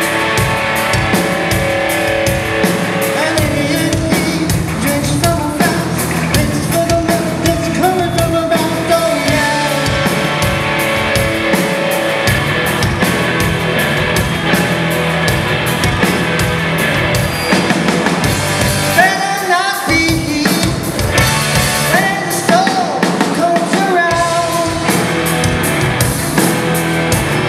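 Live rock band playing: electric guitars, bass guitar and drum kit.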